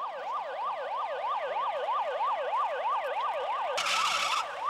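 Police car siren on a fast yelp, its pitch sweeping up and down about three times a second. Near the end a short rushing noise cuts across it.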